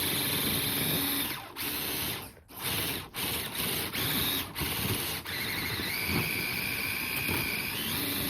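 RC crawler's electric motor and geared drivetrain whining under throttle. It comes in short stop-start bursts through the first half, then runs longer, with the whine stepping up in pitch about six seconds in and falling away near the end.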